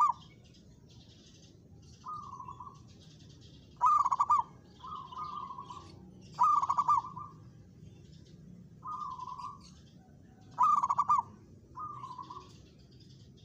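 Zebra doves (perkutut) cooing: short rolling coos repeated every second or two, three of them much louder and nearer than the rest. Smaller birds chirp thinly in between.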